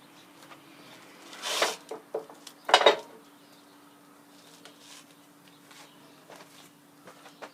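Metal gearbox parts clanking and clinking as they are handled, with two louder clanks about one and a half and three seconds in and lighter clicks between.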